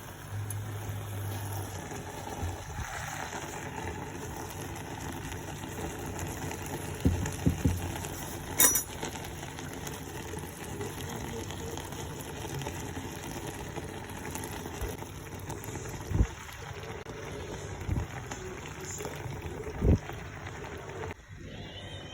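Plov bubbling and sizzling in a cooking pot, with a few short knocks and clicks from time to time.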